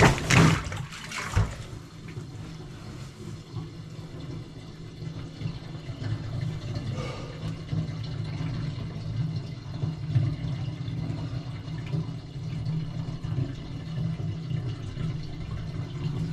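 Water running steadily, likely from a tap or into a drain, after a few loud knocks in the first second and a half.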